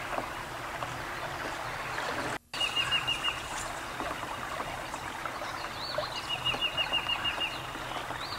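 Wild birds calling outdoors: two rapid trills of short repeated notes, the second a longer one about six seconds in, with a few short higher chirps, over a steady background hiss. The sound drops out briefly about two and a half seconds in.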